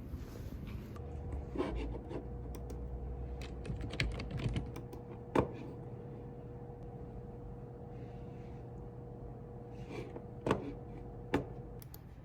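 Typing on a computer keyboard: scattered, irregular keystroke clicks over a faint steady hum.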